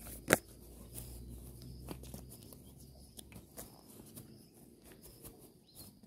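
A deck of oracle cards being handled: one sharp tap about a third of a second in, then a few lighter taps and faint rustling.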